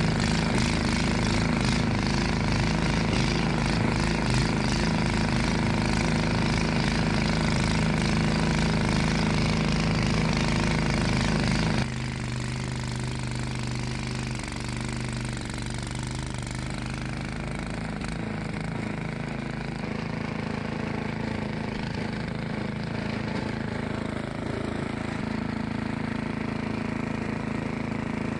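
Engine running steadily. About twelve seconds in the sound cuts abruptly to a quieter, similar engine sound.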